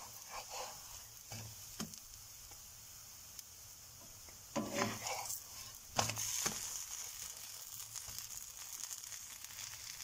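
A flatbread frying in a nonstick pan, sizzling faintly and steadily. A wooden spatula scrapes under it a few times, and about six seconds in it is flipped and slapped back down into the pan, the loudest sound.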